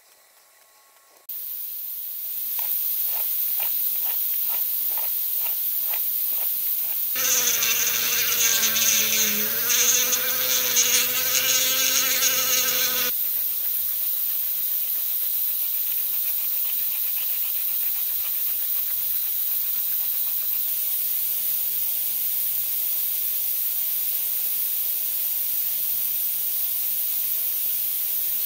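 Hand file rasping on a knife handle in regular strokes, about three a second, over a steady high hiss. A louder buzzing drone with wavering pitch cuts in for several seconds in the middle.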